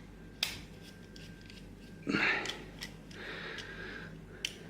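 A few light clicks and ticks of small metal lock parts being handled on a bench while the RUKO cabinet lock is being taken apart, with a short rustle about two seconds in.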